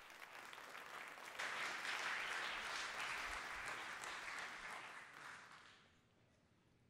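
Congregation applauding, fairly faint, swelling about a second and a half in and dying away shortly before the end.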